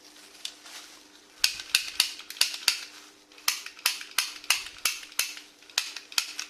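Toy gun mechanism clicking sharply, about fifteen clicks at an uneven two to three a second, starting in earnest after about a second.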